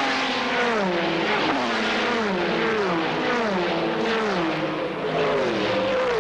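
A file of Group C sports-prototype race cars passing one after another at speed, about one a second, each engine note dropping in pitch as the car goes by.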